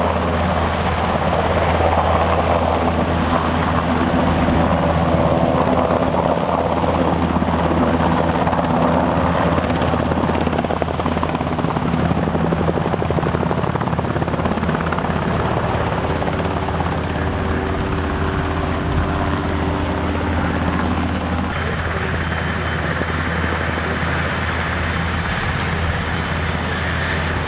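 NH90 military helicopter hovering close by, with a steady rotor beat and turbine whine. About three-quarters of the way through the sound changes suddenly at a cut, to the helicopter on the ground with its rotors still turning.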